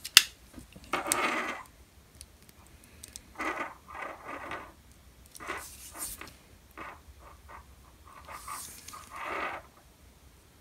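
Light scrapes, rustles and small clicks from handling stripped wire ends and small crimp ferrules taken from a plastic compartment box, in short irregular bursts.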